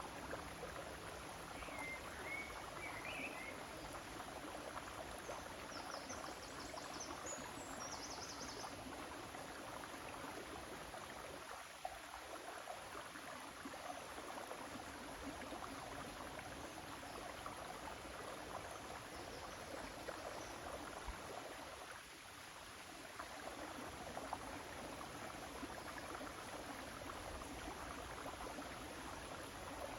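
River water flowing steadily, an even rushing sound. A few brief high chirps come through in the first several seconds.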